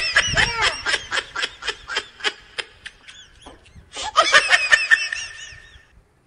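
High-pitched, hearty laughter in quick ha-ha pulses. A long run comes first, then a short lull, then a second burst about four seconds in.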